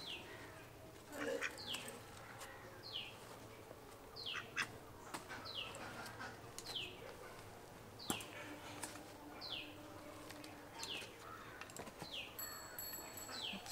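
A bird calling over and over, a short falling high note about once every three-quarters of a second, with a few sharp clicks or snaps in between.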